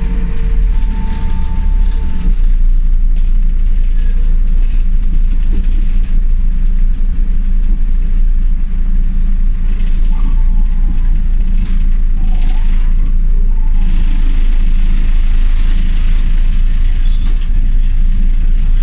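Interior of an Ikarus E91 city bus on the move: a loud, steady low rumble of engine and road noise. Scattered knocks and rattles come from a rough road surface, and a steady whine stops about two seconds in.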